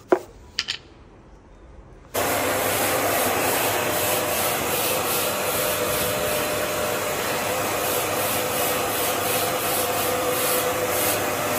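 A couple of light knocks, then a vacuum cleaner switches on abruptly about two seconds in and runs steadily with a constant hum, cleaning dust from a sliding window's track and mesh with its brush attachment.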